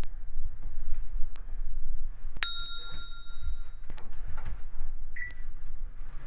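Toshiba automatic washing machine's control panel sounding: a bell-like electronic ring about two and a half seconds in that fades over about a second, then a short high beep near the end, among light clicks of buttons and handling.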